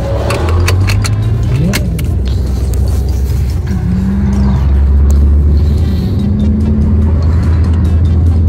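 Car engine and road noise heard inside the cabin while driving: a steady low drone whose engine note dips and rises slightly. A few sharp clicks in the first couple of seconds.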